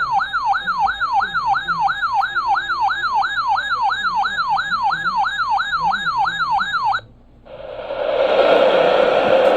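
Electronic siren-style yelp tone, its pitch sweeping rapidly up and down about three times a second; it cuts off suddenly about seven seconds in and gives way to loud radio static hiss.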